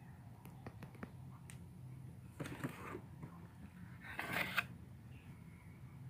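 Cardboard shoebox being handled and opened: a few light clicks, then two short rustling scrapes, the second one louder, about two and a half and four seconds in.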